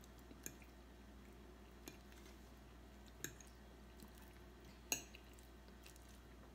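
A few short sharp clicks of a metal fork against a plastic bowl as pasta is picked up, over near-silent room tone; the loudest comes about five seconds in.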